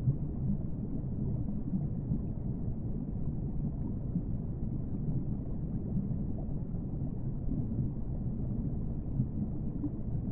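A steady, low rumbling ambience with no tune and no distinct events, even throughout.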